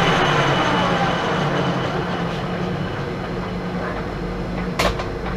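Pratt & Whitney Model B engine lathe running, a steady mechanical hum and gear whine that gradually grows quieter, with one sharp clunk about five seconds in.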